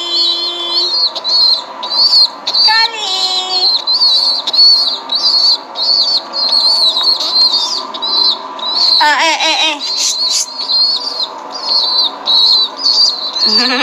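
A young chicken peeping over and over, a short high chirp about twice a second.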